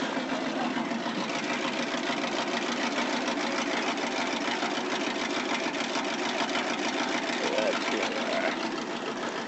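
Monster truck's engine idling steadily.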